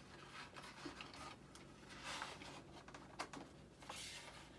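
Faint handling noise: hands pressing and working a foam part of an RC jet model into place over bundled wires, soft rustling and scraping with a few light clicks, over a faint steady low hum.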